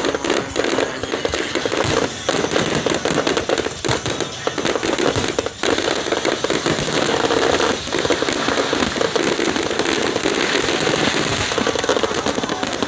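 Fireworks display: a dense, continuous barrage of aerial shells bursting, with overlapping bangs and crackling.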